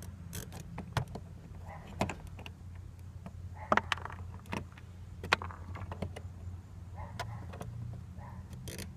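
Scattered sharp plastic clicks and taps from hands fitting fuel line connectors onto the plastic flange of a new VW Golf Mk4 fuel pump, over a low steady hum.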